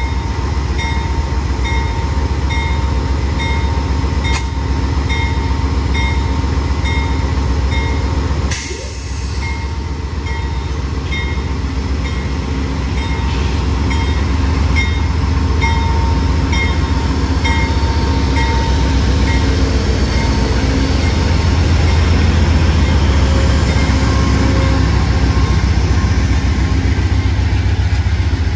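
Amtrak diesel passenger locomotive running with a steady, deep engine drone, its bell ringing about twice a second. The bell stops about two-thirds of the way through, and the engine then grows louder.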